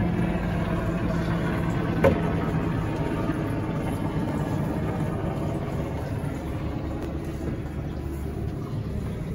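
Boat engine idling steadily, a low even hum with a single knock about two seconds in.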